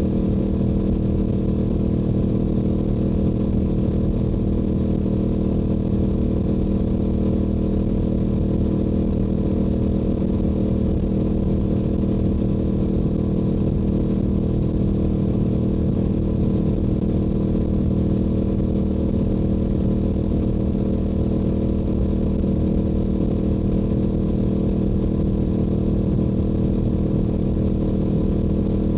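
Yamaha YZF-R7's stock-exhaust 689 cc parallel-twin engine running at a steady highway cruise, an even drone that holds one pitch with no shifts or revs.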